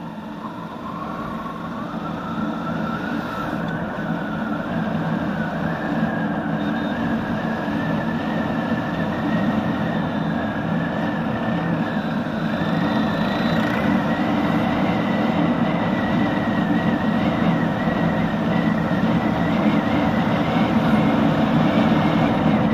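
Motorcycle engine running under way with steady road and wind noise, picked up by a helmet-mounted action camera's built-in microphone. A whine climbs slowly in pitch and the noise grows louder as the bike gathers speed.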